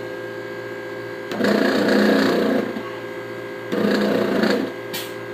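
The soda fountain multiplex's circulator pump motor rattling and grinding in two bursts of about a second each, over a steady electrical hum. The motor is bad.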